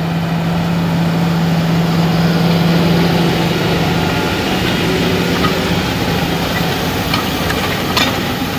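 Tractor engine running steadily as it pulls a direct drill through stubble, with a steady low hum that fades out about two-thirds of the way through. A few sharp clicks come near the end.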